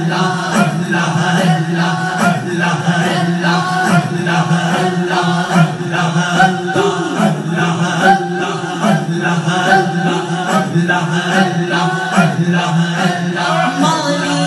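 Zikr chant of 'Allah' repeated over and over in a steady rhythm, led by a man's voice through a handheld microphone.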